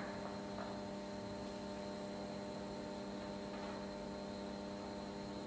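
Steady electrical mains hum: a constant low buzz made of several fixed tones over faint hiss, with nothing else standing out.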